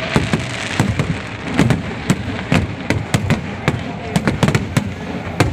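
Fireworks display: a rapid, irregular string of sharp bangs and crackles, several a second, over a continuous haze of noise.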